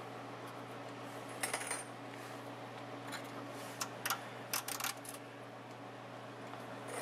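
Irregular metallic clinks of a wrench working on a car's oil drain plug as it is loosened, a few at a time, over a steady low hum.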